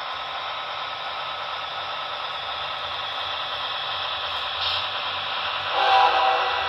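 Sound-equipped model diesel locomotive in CSX paint sounding a short horn blast, a chord of several steady tones, about six seconds in, over a steady hiss.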